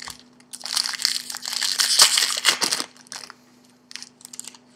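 Trading card pack wrapper being torn open and crumpled: a dense crinkling run of about two seconds, then a few lighter rustles and clicks as the cards are handled.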